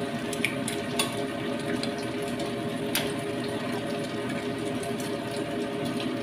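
Noodle broth boiling in a stainless steel wok on a gas stove: a steady bubbling hiss, with a couple of light clicks of the metal ladle against the pan, about one and three seconds in.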